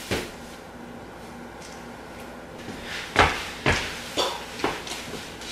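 Sneaker footsteps and stomps on a hardwood floor. One thud comes at the start, then a run of about six thuds, roughly two a second, from about three seconds in.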